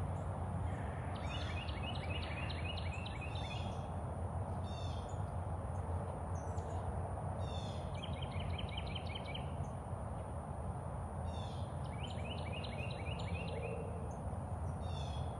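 A songbird singing several phrases of quick, evenly repeated chirping notes, a pause of a few seconds between phrases, over a steady low rumble and a faint steady high hiss.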